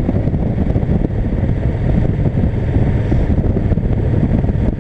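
Wind rushing over the microphone, with a motorcycle engine running steadily underneath while riding.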